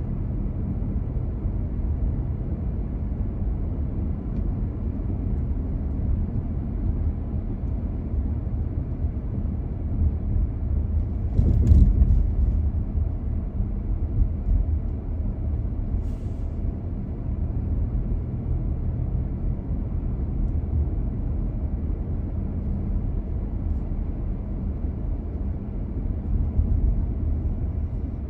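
A car driving: steady low rumble of road and engine noise. A louder bump about twelve seconds in and a brief hiss a few seconds later.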